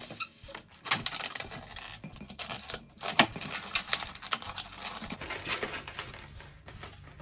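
Latex modelling balloons being handled and twisted: rubbery squeaks and rubbing with irregular sharp clicks.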